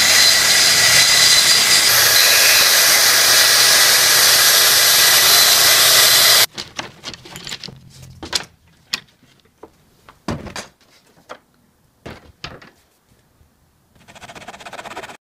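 Festool plunge track saw running and cutting plywood along its guide rail: a loud, steady whine that stops abruptly about six seconds in. Afterwards, scattered knocks and clicks of wood and rail being handled.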